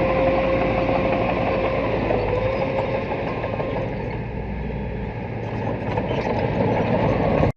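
Small bulldozer's diesel engine running under work, with a steady high whine and mechanical clatter. The engine eases off and quietens for a couple of seconds about four seconds in, then picks up again.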